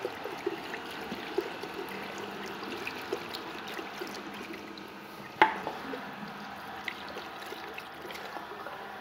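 Tap water running onto a hand and into a ceramic washbasin, splashing and trickling steadily down the drain, with a single sharp click or knock about five and a half seconds in.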